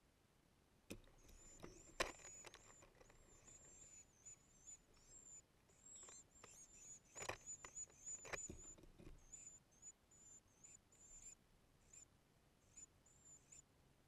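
Palm warbler nestlings begging, a run of many short, thin, very high-pitched squeaky chirps. Several sharp knocks and a flutter come with the adult bird landing at the nest, the loudest knock about two seconds in and another cluster around six to eight seconds.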